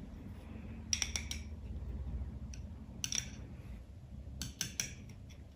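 Metal spoon clinking and scraping against a drinking glass while spreading biscuit crumbs in it: small clusters of light clinks about a second in, around three seconds, and again after four seconds.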